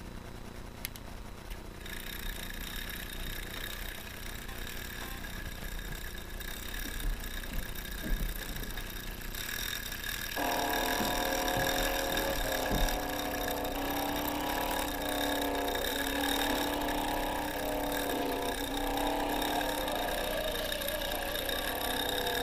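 Small electric motor of a homemade toy car starting up about two seconds in with a steady high-pitched whine as it spins its little propeller. About ten seconds in a lower, wavering whir joins and runs on, with a few light knocks before it.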